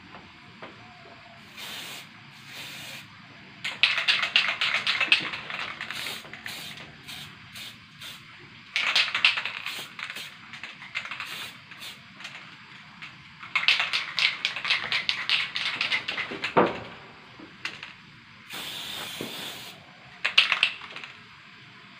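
Aerosol spray-paint can (pilox) spraying paint in repeated hissing bursts, three long ones of a few seconds each and several short ones, with pauses between.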